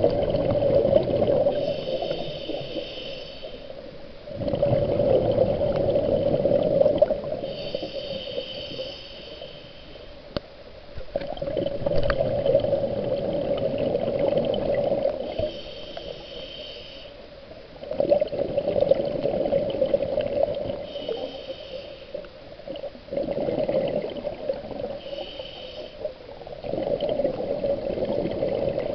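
Scuba diver breathing through a regulator, heard underwater: a short hissing inhale, then a longer gurgle of exhaust bubbles. About six breaths in a steady rhythm, one every four to six seconds.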